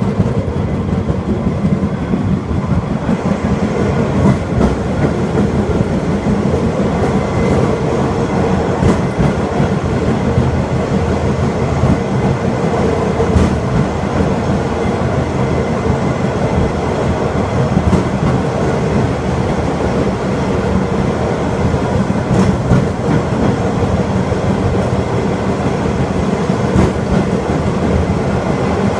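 Takachiho Amaterasu Railway sightseeing rail cart running along the track: a steady rumble of wheels on rail, with a faint click every four to five seconds.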